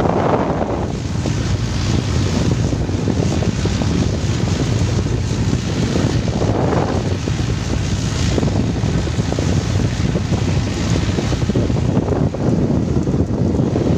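Wind buffeting the microphone aboard a motor fishing boat under way, over the steady low running of its engine and rushing water, with two brief gusts.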